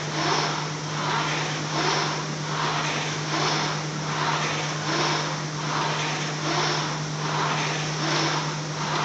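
Concept2 indoor rower's air-resistance flywheel whooshing with each stroke, the rush swelling and fading in a steady, fast rhythm as the rower pulls hard.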